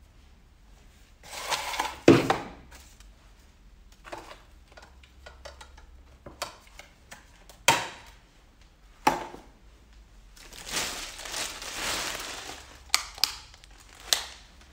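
Handling noise from things being moved about: scattered sharp knocks and clicks, a loud knock about two seconds in, and stretches of rustling, the longest near the end.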